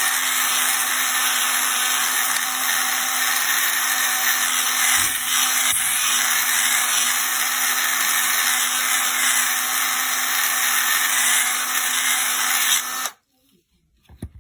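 Small power tool running steadily at speed, grinding and polishing smooth the scored bushing that carries the impact wrench's anvil shaft. A constant hum under a strong hiss; it cuts off near the end.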